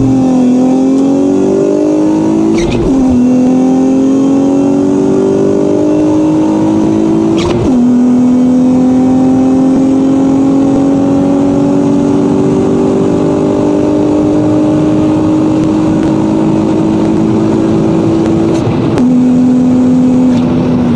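Acura TL SH-AWD's 3.7-litre V6 pulling hard under acceleration, its revs climbing and dropping sharply at each upshift, about 3 and 7.5 seconds in. A long climb in the higher gear follows, then another drop near the end.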